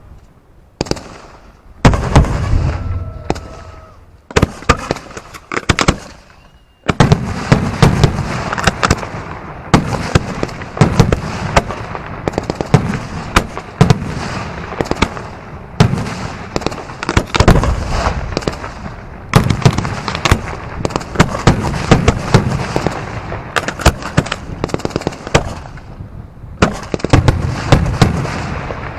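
Pyrotechnic fireworks barrage simulating anti-aircraft flak: a few separate sharp bangs at first, then from about seven seconds in a near-continuous rapid volley of cracks and deep booms.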